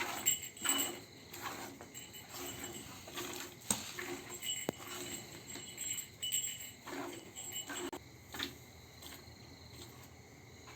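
Jets of milk squirting in a steady rhythm into a metal pail as a cow is milked by hand, each squirt a short hissing ring against the pail. The squirts grow fainter and further apart near the end.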